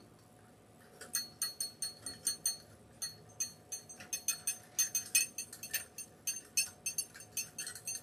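Chicken wire clicking and clinking against a metal wreath frame as it is bent and tucked in by hand: quick, irregular, light metallic ticks, several a second, starting about a second in.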